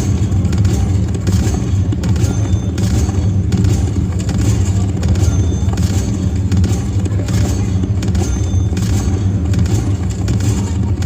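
Slot machine's electronic music and sound loop: a heavy, steady bass with a regular beat, and a short high chime repeating about every three seconds.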